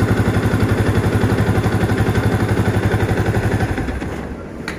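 Motorcycle engine idling with an even, rapid pulsing beat, then switched off about four seconds in and running down. A sharp click follows near the end.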